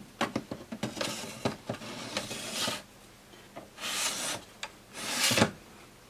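Mac Pro's metal processor tray, carrying two large heatsinks, slid back into the case along its guides. There are a few short clicks, then scraping metal-on-metal rubs in three spells, the last one sharper and louder near the end.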